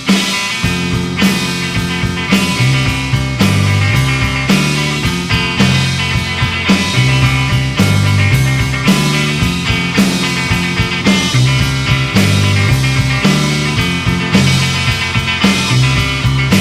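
Instrumental break of a Britpop-style rock song: distorted guitars over a bass line and a steady drum beat, with no vocals.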